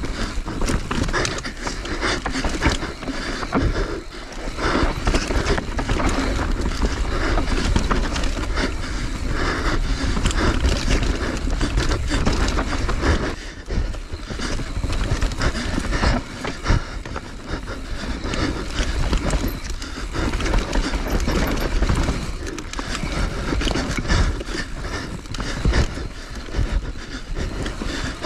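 Mountain bike ridden fast down a rough trail, heard from on the bike: a constant low rumble and hiss of tyres and air, with frequent clattering knocks and rattles from the bike over rocks and roots. It eases briefly about halfway through.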